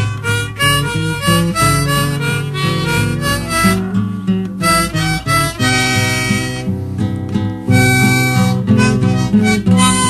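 Music: a harmonica playing held chords and notes over plucked acoustic guitar.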